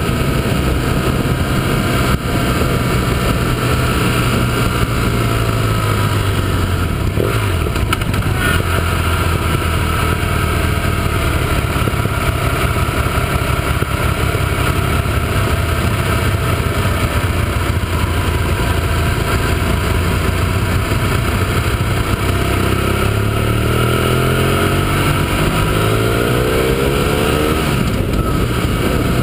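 Motorcycle engine running under way, heard from an onboard camera, with steady wind rush. Engine speed drops about a quarter of the way in, then rises in climbing runs near the end as the bike accelerates.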